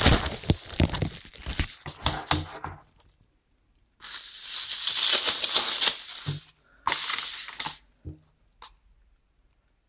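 Packaging wrap being crinkled and torn by hand as a Blu-ray is unwrapped. Crackly rustling stops about three seconds in, resumes a second later, comes again briefly near seven seconds, and ends with a couple of light taps.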